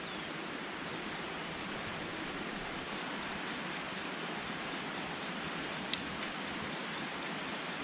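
Steady rushing outdoor background noise with an insect starting a steady high trill about three seconds in, and a single sharp click near the end.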